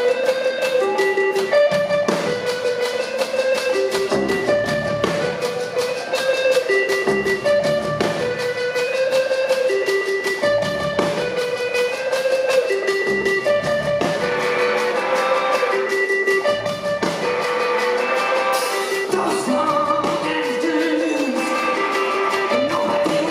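Live rock band playing an instrumental passage: electric guitar over drums, with a melodic figure repeating every couple of seconds.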